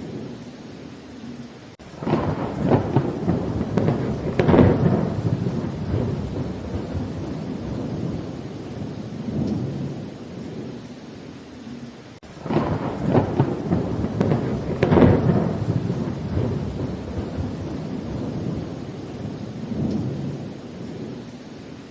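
Steady rain with two long rolls of thunder. One breaks in suddenly about two seconds in, the other about halfway through, and each rumbles on and fades over several seconds.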